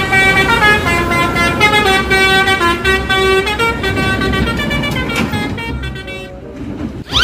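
A bus's multi-tone 'telolet' air horn playing a tune of short held notes that step up and down in pitch, fading out about five seconds in. A quick rising whistle-like glide sounds near the end.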